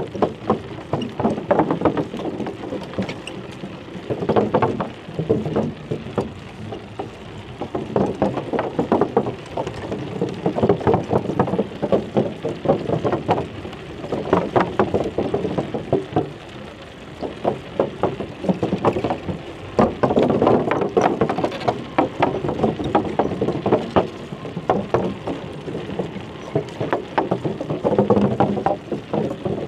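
A bicycle ridden over an uneven path, rattling and knocking irregularly, with rumbling ride noise picked up by a chest-mounted camera.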